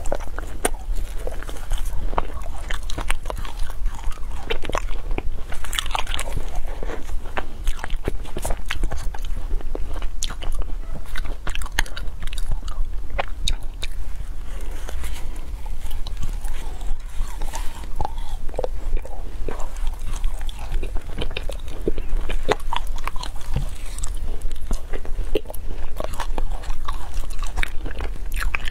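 Frozen matcha ice being bitten and chewed: a steady stream of sharp crunches and cracks as chunks are bitten off and ground between the teeth, over a steady low hum.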